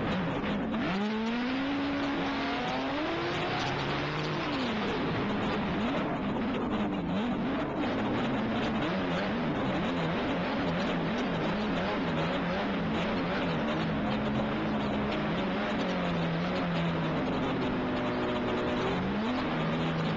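Snowmobile engine running hard under an onboard camera, its pitch climbing about a second in and then wavering up and down, over a constant rush of wind and track noise.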